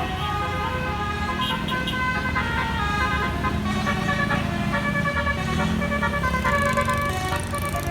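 A bus's 'telolet basuri' multi-trumpet musical air horn playing a tune, its tones changing step by step like a melody, over the low rumble of the bus engine.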